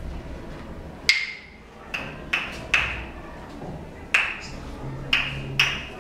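Wooden claves struck together, about seven sharp, ringing clacks at uneven intervals, some louder than others, as a group of children play them in turn.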